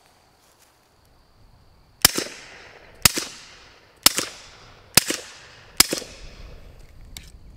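Five suppressed pistol shots, about one a second, from a fourth-gen Glock 19 9mm fitted with a SilencerCo Octane 45HD suppressor running dry (no gel), firing subsonic 147-grain rounds. Each shot is a sharp report with a short fading tail: quiet, but not super quiet.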